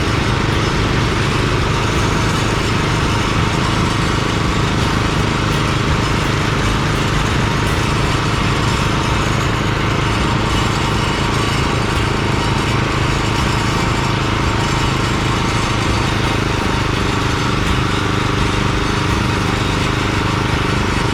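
Gasoline engines of concrete power trowels running steadily at working speed as the blades float and finish the slab.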